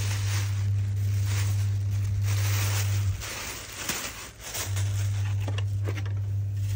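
Plastic bag crinkling and rustling as dry sheep manure is shaken out of it into a basin, then hands stirring the dry mix. Under it runs a steady low hum that drops out for about a second and a half midway.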